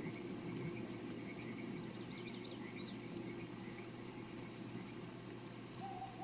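Steady rain hiss with a low rumble underneath, and small birds chirping, with a cluster of quick chirps about two to three seconds in. A single held tone starts just before the end.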